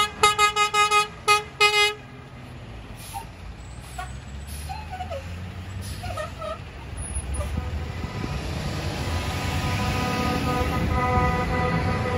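Tow truck horn sounding a rapid string of about seven short toots, then the engines of a line of tow trucks driving past. Near the end a long steady horn blast sounds as the next truck approaches.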